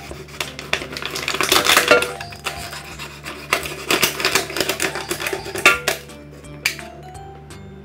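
Thin plastic water bottle crackling and crinkling in irregular bursts as it is cut apart and handled, heaviest about a second in and again midway, with background music under it.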